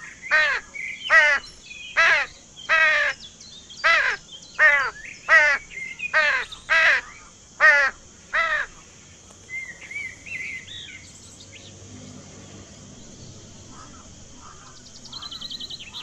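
Crow cawing: a run of about a dozen harsh caws, each falling in pitch, roughly one every three-quarters of a second, stopping after about eight seconds. Faint small-bird chirps follow, and a brief fast rattle near the end.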